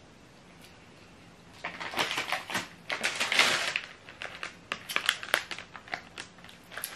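Crinkling of a plastic candy bag being picked up and handled: a busy run of rustles and sharp crackles that starts about a second and a half in.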